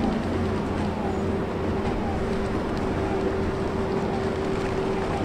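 Steady low drone of a vessel's engine on harbour water, with a constant hum that rises a step in pitch just after the start.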